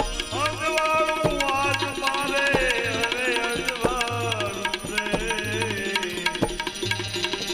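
Instrumental interlude of a devotional bhajan: a melody that slides between notes over steady hand-drum strokes.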